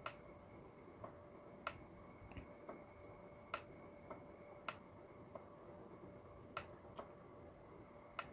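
Faint, sharp clicks of a computer mouse, about a dozen at irregular intervals, over a faint steady electrical tone.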